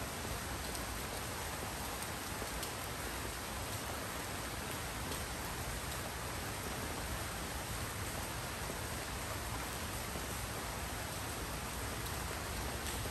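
Steady rain falling, an even hiss with a few separate drops standing out now and then.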